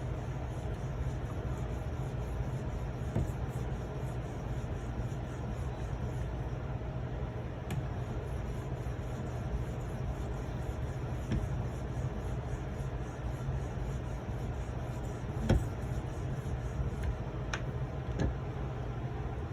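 A steady low hum runs throughout, with a few light clicks and taps scattered through it; the loudest click comes about three-quarters of the way in.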